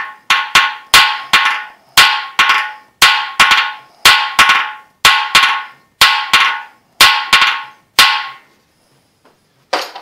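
Hammer blows on the seized cylinder-head studs of a cast-iron Ford flathead V8 block, delivered to shock the rusted studs loose. Two or three strikes a second, each with a short metallic ring, stop about eight seconds in, with one more knock near the end.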